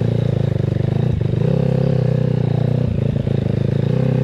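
Dirt bike engine running steadily while the bike is ridden. The note dips briefly twice, about a second in and again around three seconds in.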